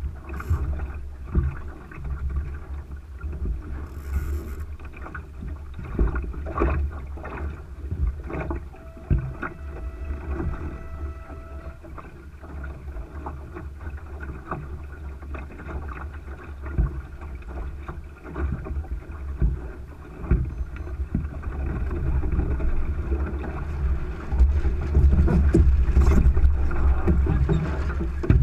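Wind buffeting the microphone and water rushing along the hull of a Thistle sailing dinghy under way, with scattered knocks and clicks from the boat's gear. The wind rumble grows louder over the last few seconds.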